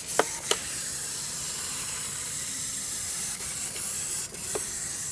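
Steady background hiss from the recording, with a few soft clicks.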